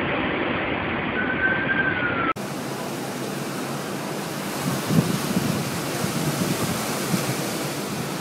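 Tornado wind buffeting a phone microphone: a steady rushing noise with a stronger gust about five seconds in. In the first two seconds a siren's wail falls in pitch over the wind.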